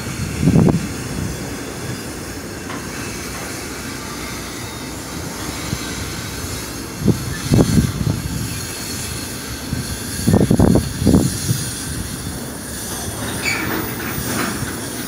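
Double-stack container train's well cars rolling past, their steel wheels rumbling and squealing on the rails. A few louder low rumbles come and go along the way.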